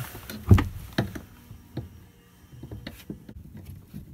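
Screwdriver working at rusted screws in wooden cabin trim: a few sharp knocks and clicks, the loudest about half a second in, then lighter scattered ticks.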